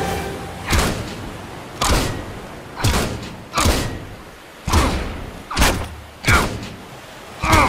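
A series of eight heavy thuds, about one a second, each sudden with a short tail: blows being struck.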